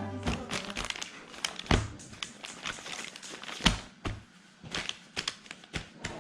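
Envelopes and packets being handled and packed: paper and plastic crinkling and rustling, with scattered sharp taps and clicks at irregular intervals.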